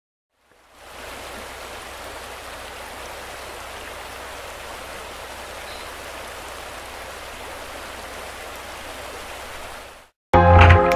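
River whitewater flowing over a rock: a steady rush of water that fades in about a second in and cuts off near the end, where loud music with a beat starts.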